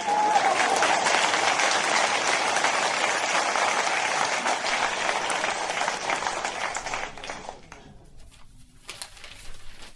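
Audience applause starting as the scene opens and fading away about seven to eight seconds in.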